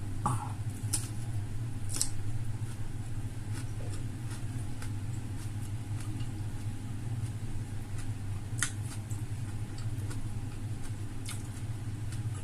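Crunchy eating sounds: a few sharp crisp clicks and crunches of biting and chewing fried chicken, about a second and two seconds in and again near the end. Under them is a steady low hum.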